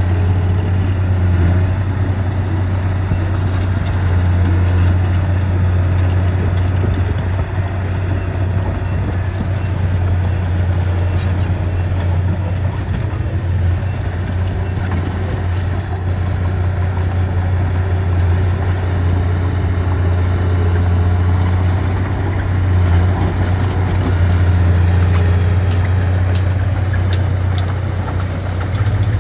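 Heavy earthmoving machine's diesel engine running steadily with a deep drone, with scattered metallic clinks and rattles over it.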